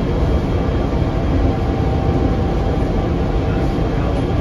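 Rubber-tyred automated people-mover car (PHX Sky Train, Bombardier Innovia APM 200) running at speed along its concrete guideway, heard from inside the car: a steady low rumble with a few faint steady tones above it.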